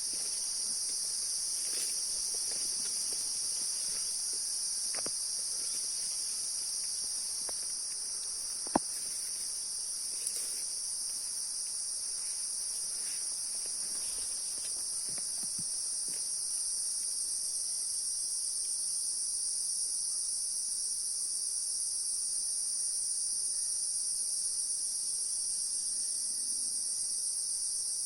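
A steady chorus of insects, a continuous high-pitched shrill that holds without a break, with a few faint ticks and one sharp click about nine seconds in.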